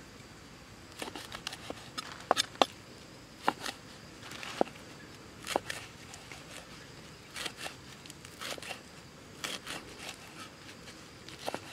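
Large knife chopping fresh leaves on a wooden chopping block: irregular sharp knocks of the blade against the wood, starting about a second in and coming in short clusters.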